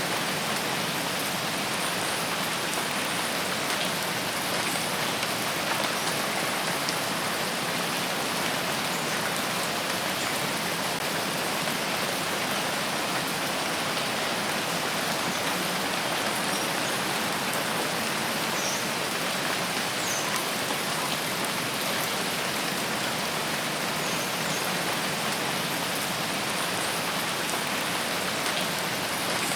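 Steady rain falling in a forest, an even hiss of many drops that neither builds nor fades.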